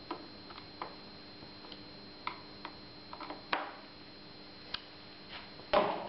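Irregular light clicks and taps from hands handling wires and small parts in an electric bike's wiring compartment, with a louder knock near the end.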